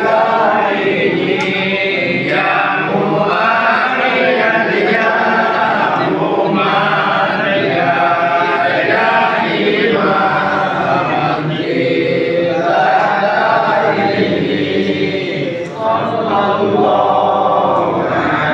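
A group of men chanting salawat, blessings on the Prophet Muhammad, together in one continuous melodic chant, led by a single voice.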